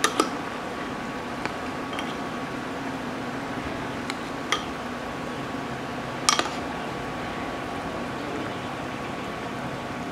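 Fish-sauce braising liquid simmering and bubbling in a clay pot of catfish, with a metal spoon clinking against the pot a handful of times as the sauce is ladled over; the loudest clink comes about six seconds in. A faint steady hum runs underneath.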